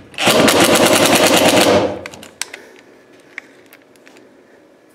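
Cordless impact driver hammering a screw into a metal electrical box on a wooden joist: a rapid, loud rattle lasting about a second and a half, then stopping. A few small clicks follow.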